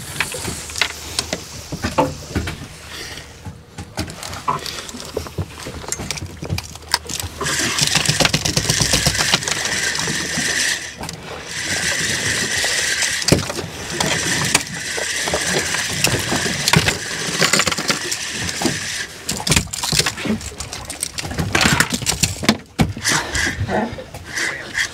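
Fishing reel being cranked to retrieve line after a cast: a steady whirring that starts about a third of the way in, pauses briefly, then runs on for about ten seconds more. Scattered knocks and handling noise come before and after it.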